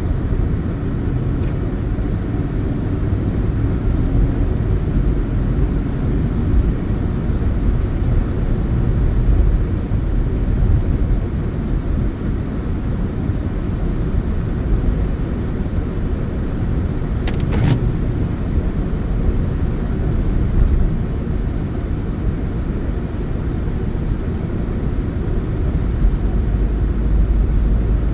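Car interior noise while driving on a wet road: a steady low rumble of engine and tyres. Two brief clicks come, one about a second in and one about halfway through.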